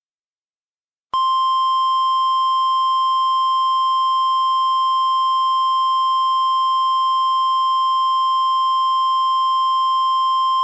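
NOAA Weather Radio warning alarm tone: a single steady 1050 Hz tone that starts about a second in, after a short silence, and holds unchanged. It is the attention signal that announces an emergency alert message is about to follow.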